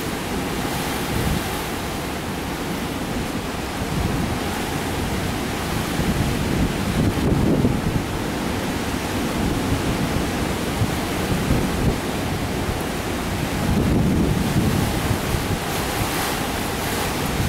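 Heavy hurricane surf crashing on the beach, with storm wind buffeting the microphone in gusts that swell twice.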